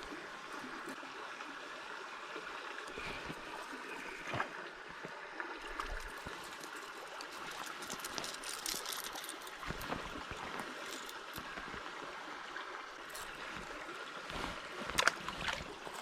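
Small river's water flowing and trickling steadily, with a few brief clicks and one sharper knock near the end.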